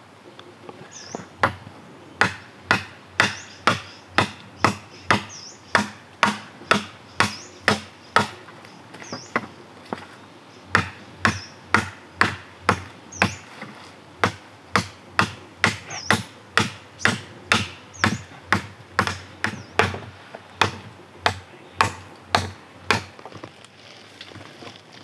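Machete chopping green wooden poles: about forty sharp strikes at roughly two a second, with a short pause near the middle.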